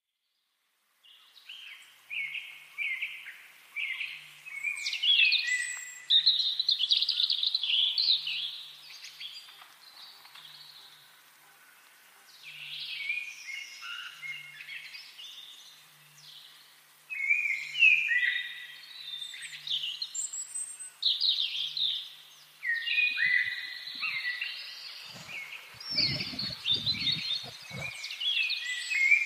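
Birds chirping and singing, a dense run of short, quick calls and trills that eases off briefly partway through, with a few low thumps near the end.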